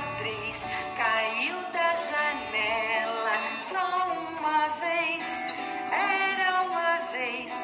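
A woman singing a children's song over an instrumental backing track.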